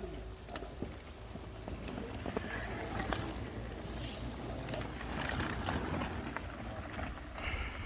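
Off-road handbike rolling over a forest trail: tyres crunching over the ground with scattered clicks and knocks over a steady low rumble.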